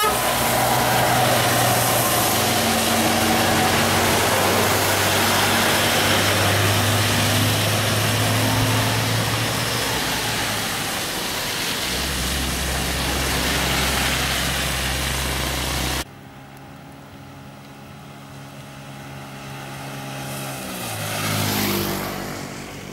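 Scania K410 iB coach's straight-six diesel engine running as it passes close, with a steady hiss of tyres on a wet road. About 16 s in the sound cuts to quieter distant traffic, which swells as a vehicle passes near the microphone at about 21–22 s and then fades.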